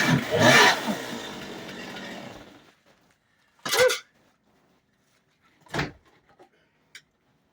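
Chainsaw engine running at speed, then cut off and winding down to a stop over about two seconds. A few short knocks follow in the quiet.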